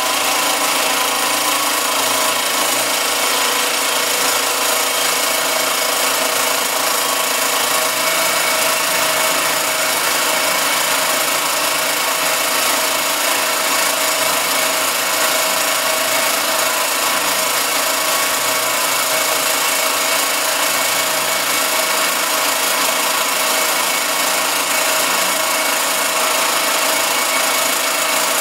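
Circa-1948 Gorton 8-1/2D milling machine running under power, its cutter milling an aluminum casting on a slow, steady table feed. A continuous cutting noise with several steady whining tones over it, level throughout.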